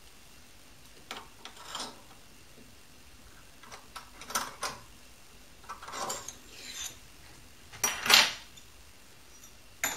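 Metal parts being handled on a mini lathe's cross slide and milling vise: a steel plate and blocks clink and scrape in five short bursts, the loudest about eight seconds in.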